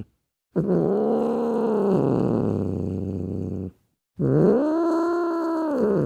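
Clouded leopard calling: two long moaning calls, each rising in pitch, holding, then falling, starting and stopping abruptly with a short silence between.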